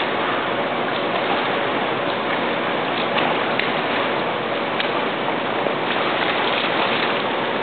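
A swimmer's splashing: a steady wash of water noise from kicking with swim fins and arm strokes, with a few faint sharp splashes.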